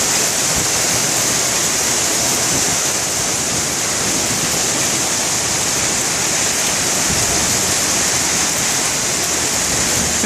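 Heavy hail falling: a dense, steady roar of hailstones striking.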